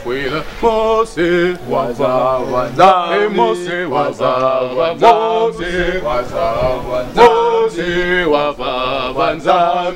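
Male voice singing a chant in long, wavering held notes, with a low steady note sounding underneath.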